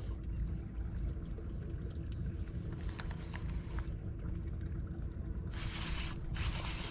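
Steady low hum and rumble of a bass boat's electric trolling motor, with a couple of faint clicks about three seconds in and two short hissing bursts near the end.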